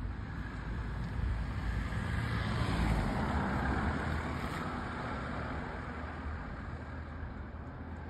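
A car passing on the road, its engine and tyre noise swelling to a peak about three seconds in and then fading away, over a low rumble of wind on the microphone.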